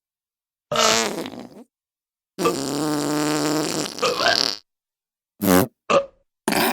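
A string of fart sound effects separated by silence: one about a second in, a long steady-pitched one lasting about two seconds, then three quick short ones near the end.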